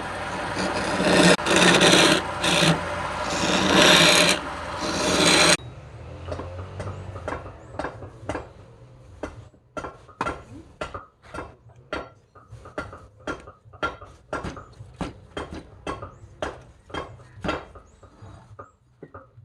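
Loud, continuous rasping of a tool on wood that cuts off suddenly about five and a half seconds in, followed by a steady run of rasp strokes on wood, about two a second.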